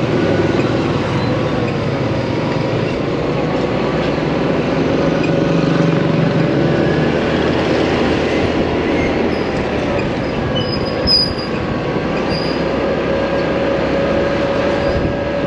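Motorcycle riding along the road: steady engine, road and wind noise, the engine note climbing slightly, with one brief sharp sound about eleven seconds in.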